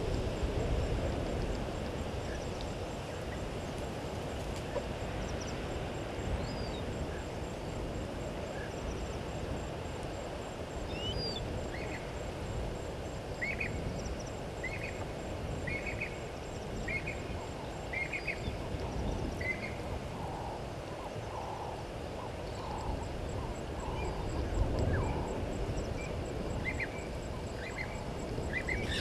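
Bush ambience: a bird gives a series of short repeated calls, about one a second, midway through, followed by a run of lower calls, over a steady low rumble.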